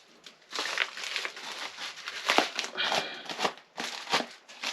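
Packing material crinkling and rustling with a few sharp clicks as hands dig through a cardboard shipping box.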